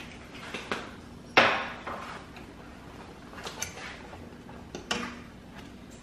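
Metal fork clinking and knocking against a skillet while chicken is moved around in the sauce: a handful of sharp clinks, the loudest about one and a half seconds in.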